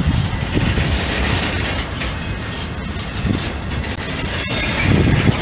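Freight train of covered goods wagons rolling past on the adjacent track, with steady wheel-on-rail noise and louder low knocks near the end.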